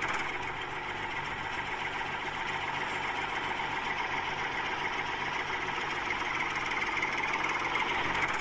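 Small electric motor of a homemade stick-built toy tractor running steadily as it drives.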